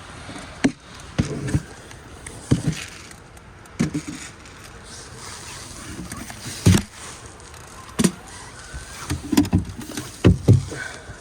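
Strong gusty wind buffeting the microphone: a steady rush with irregular low rumbling blasts every second or so, the loudest near the middle and toward the end.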